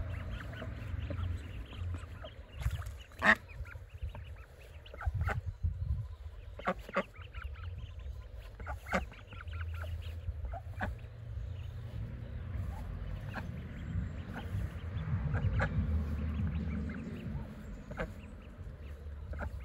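Domestic ducks calling: scattered short, harsh quacks, the loudest about three seconds in, among the softer peeping of a brood of ducklings.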